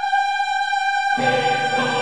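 Orchestral classical music. A single high note is held for about a second with little underneath, then the full orchestra comes back in.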